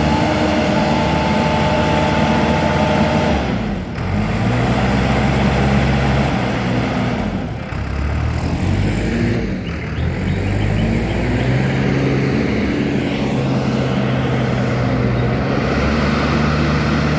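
AX124 backhoe loader's diesel engine running under hydraulic load, its pitch dipping and recovering several times as the arms and stabilisers work the machine. A steady whine runs over the engine for the first few seconds.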